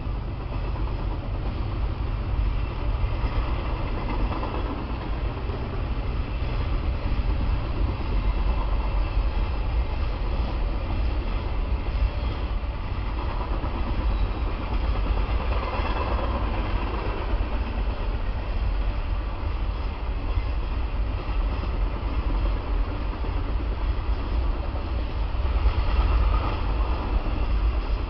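Tropicana juice train's refrigerated boxcars rolling steadily past at trackside: a continuous rumble and rattle of steel wheels on the rails.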